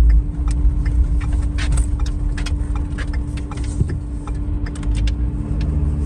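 A vehicle moving slowly, heard from inside the cabin: steady low engine and road rumble with a constant hum, and scattered sharp ticks and crackles at irregular moments.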